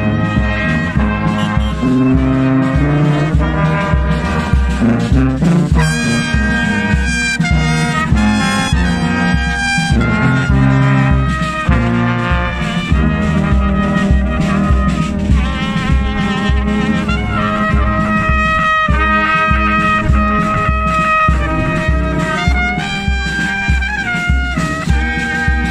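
Brass band playing, trumpets and tubas carrying a melody over a steady bass-drum beat.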